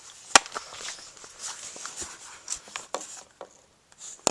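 Irregular knocks, clicks and scraping for about three seconds, with a sharp knock about half a second in, then quieter, ending on one sharp click.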